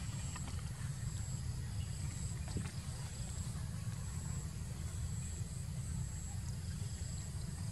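Steady outdoor background: a low rumble, with a thin, high-pitched insect drone that comes and goes over it and a few faint clicks.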